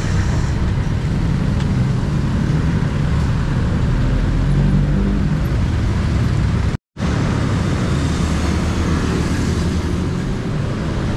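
Steady road traffic noise, cars and other vehicles passing, heard from a bicycle riding along a busy city road, with heavy low rumble. The sound cuts out completely for a moment about seven seconds in.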